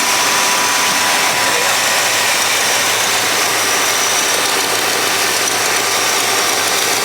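A cold Pontiac 389 V8 idling steadily, heard close in the engine bay. Exhaust is leaking at the manifold-to-downpipe flange, which the owner traces to a missing doughnut gasket and which he hears as popping.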